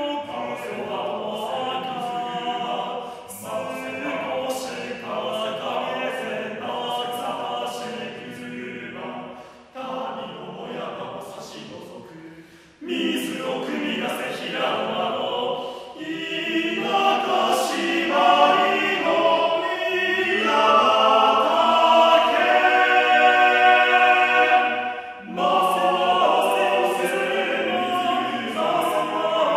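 Seven-voice male a cappella choir singing in close harmony. The singing fades to a soft passage and comes back suddenly loud about thirteen seconds in, then builds to a long loud held chord that breaks off briefly near the end before the voices go on.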